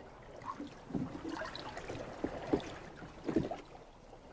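Water lapping and sloshing against the hull of a small boat, in soft, irregular splashes.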